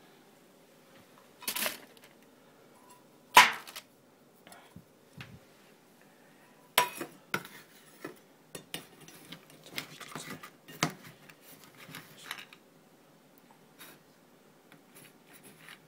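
Stainless steel pet food bowls clanking and knocking against a stainless steel counter as they are emptied of leftover kibble and handled: a string of separate sharp clinks, the loudest about three and a half seconds in.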